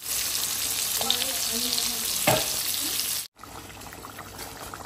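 Whole khoi fish (climbing perch) sizzling as they fry in hot oil in a pan, a loud even hiss with a single knock about halfway through. A little after three seconds it cuts off suddenly, and a pot of fish curry simmers more quietly.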